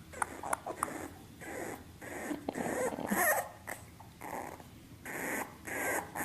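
Dog making a run of short breathy grunts with brief whimpers in between.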